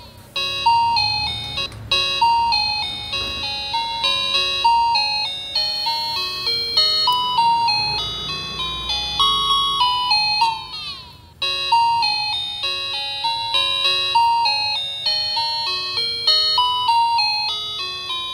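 Background music: a bright, plinking melody of short notes stepping up and down, with a brief break and a quick run of gliding notes about eleven seconds in.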